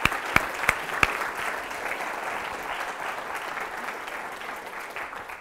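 Audience applauding, with a few loud single claps close by in the first second, then steady clapping that begins to fade near the end.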